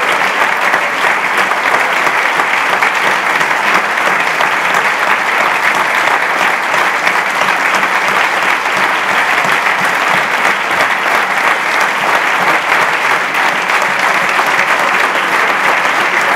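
A large audience clapping steadily: dense applause from many hands that keeps an even level.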